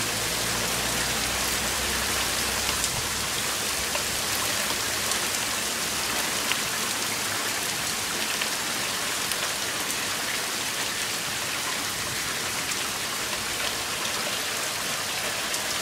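Heavy thunderstorm rain pouring down steadily onto a paved street: a dense, even hiss with scattered sharper ticks of drops striking close by.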